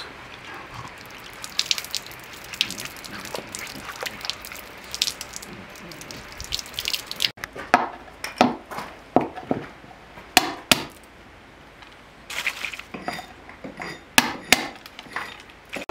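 Water trickling from a clay jug over a stone held in the hands, with small drips and splashes. About halfway this gives way to a hand-held stone striking walnuts on a wooden board: a run of sharp, irregular knocks as the shells crack.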